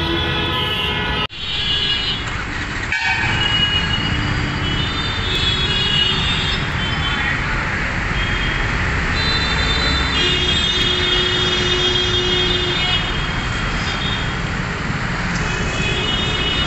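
Road traffic with engines running and repeated horn honking. The sound drops out briefly at a cut about a second in.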